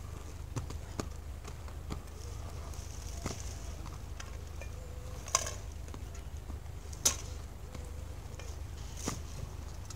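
Inline skate wheels rolling around a concrete bowl: a low, steady rumble with scattered sharp clacks, the loudest about five and seven seconds in.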